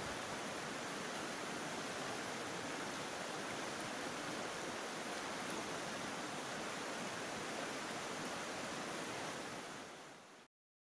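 Shallow river rushing over rocks and gravel, a steady noise of flowing water that fades out about ten seconds in and cuts to silence.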